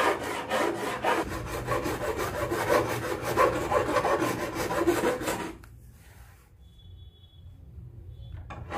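A flat steel hand file rasping in quick repeated strokes along the edge of a laminate-covered plywood table top, filing the overhanging laminate sheet flush with the plywood. The filing stops about two-thirds of the way through.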